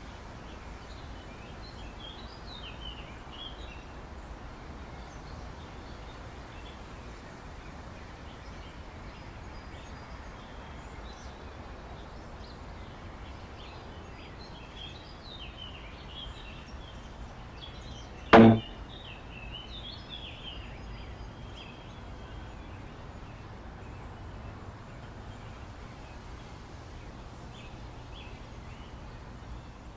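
Outdoor ambience of birds chirping over a steady hiss, broken a little past halfway by a single sharp, loud hit sound effect.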